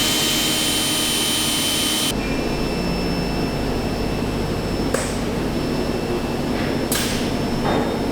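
A small power tool spinning up with a rising whine, holding a steady high whine for about two seconds, then cutting off abruptly. After that a steady machinery hum continues, with two sharp knocks.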